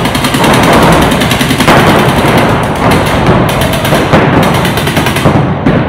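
Paintball markers firing in rapid strings, a fast steady rattle of pops many times a second, which stops shortly before the end.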